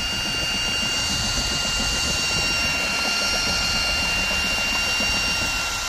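Milwaukee FUEL brushless cordless drill running steadily in first gear, driving a homemade boat propeller that churns the water behind the boat. A steady high motor whine sits over an even low rumble, with no change in speed.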